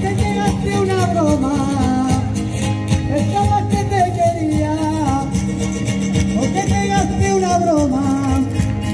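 A live Mallorcan folk band (rondalla) playing a dance song: a singer's voice in three falling phrases over strummed guitars and a steady low accompaniment.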